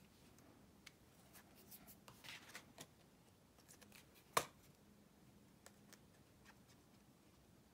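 Faint rustling and light ticks of card stock and a liquid glue bottle being handled on a craft mat, with one sharper click a little past halfway.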